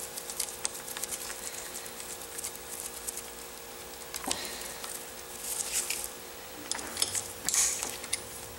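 Scattered small metallic clicks and rattles of a chain breaker tool being worked by hand on a Honda CB450 cam chain, as the tool is set to push the pin out of a chain link. The clicks come in small clusters in the second half.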